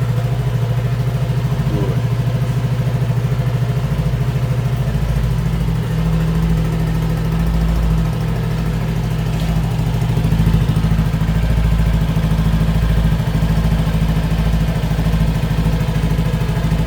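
Yamaha NMAX scooter's single-cylinder engine idling steadily.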